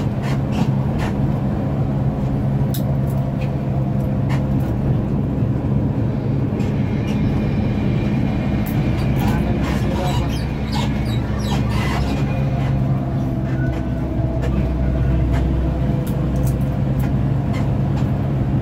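Intercity bus on the move, heard from inside the cabin: a steady low engine drone with scattered clicks and knocks from rattles and bumps.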